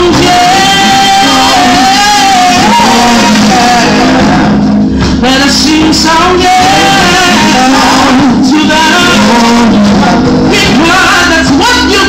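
Live gospel worship song: a woman sings lead into a microphone over a church band and backing singers. She holds one long note for the first few seconds, and near the end she slides up and down through quick vocal runs.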